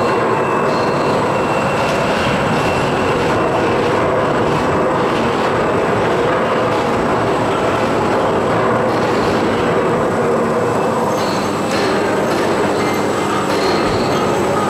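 Steady, loud welding-shop machinery noise: a continuous rumbling hiss with a few faint, steady high whining tones and no distinct knocks.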